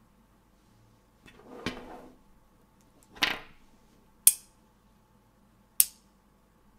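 5 mm magnetic balls being handled and snapped together: two softer rustling clatters, then two sharp metallic clicks about a second and a half apart as pieces snap into place.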